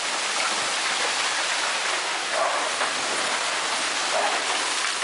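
Steady, even rushing noise with no distinct impacts or tones.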